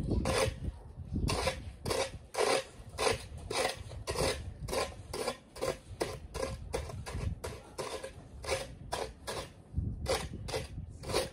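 Snow crunching and scraping in a steady series of short strokes, about two a second.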